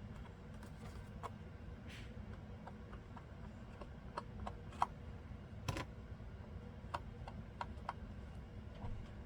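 Scattered light clicks and taps of paper and small craft tools being handled on a work table, with one sharper click about halfway through, over a low steady hum.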